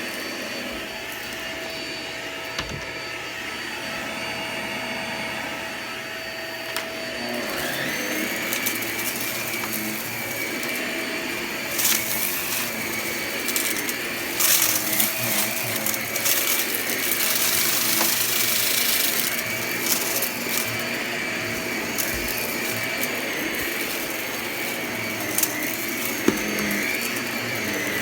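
Vacuum cleaner running continuously with a high motor whine that steps up in pitch about a quarter of the way in. Bursts of crackling and rattling come through the middle as crunchy debris is sucked up.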